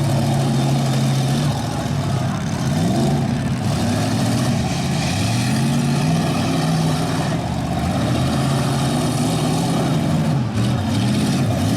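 Several stock car engines running at once, revving up and dropping back over and over as the cars push and spin in deep mud.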